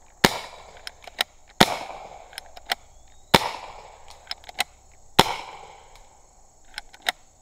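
Paintball pistol fired four times, a sharp pop roughly every second and a half to two seconds, each with a short echo trailing off, and fainter clicks in between.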